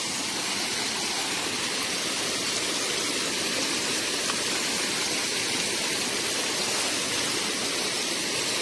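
Steady rushing of flowing water, an even hiss without breaks.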